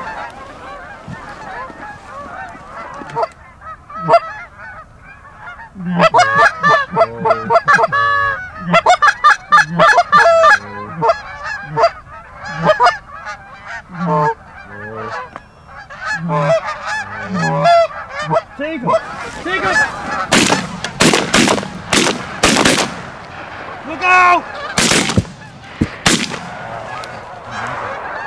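Canada geese honking in flight: many overlapping honks from flocks overhead, loudest and thickest about six to eleven seconds in.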